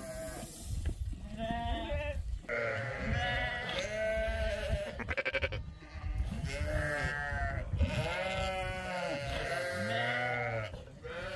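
A flock of sheep and goats bleating, many calls following and overlapping one another without a break, with one rapidly quavering bleat around the middle.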